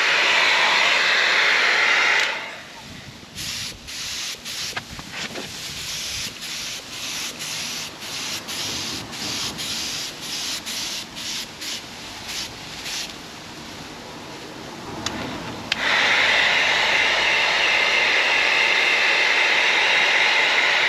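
Paint spray gun hissing steadily as the colour coat is sprayed onto a car bumper. In the middle it breaks into a run of short hisses, about two a second, then sprays steadily again for the last five seconds or so.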